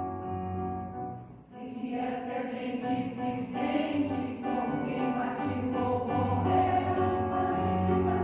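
A piano playing a few held chords, then a mixed choir comes in singing about two seconds in, with the piano accompanying.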